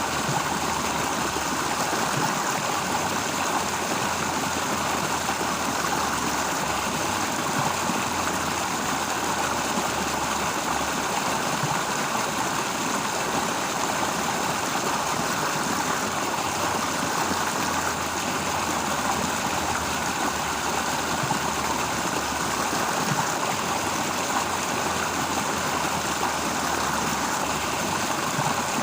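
Flowing stream: a steady rush of running water with no breaks.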